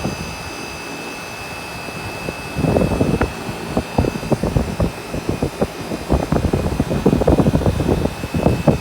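A 1980 Miller 3-ton air conditioner running: a steady hum with a thin high whine. Irregular gusts of air buffet the microphone about two and a half seconds in and again from about six seconds on.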